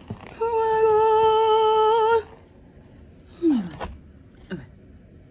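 A woman's voice humming a long, high appreciative "mmm" for about two seconds with a slight wobble in pitch, then two short falling vocal sounds about a second apart.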